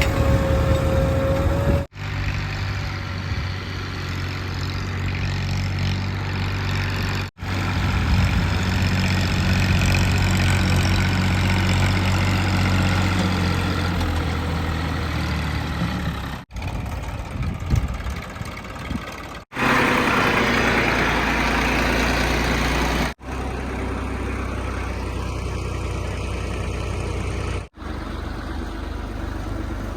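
Heavy diesel engine of a JCB 3DX backhoe loader running steadily while working, broken by several abrupt cuts every few seconds.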